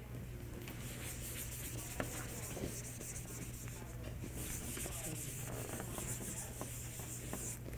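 Felt whiteboard eraser rubbing across a whiteboard, wiping off marker drawings in two stretches of strokes, the second longer.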